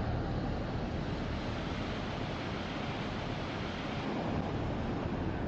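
Ocean surf breaking and washing up a sandy beach in a steady wash of noise, with wind buffeting the microphone.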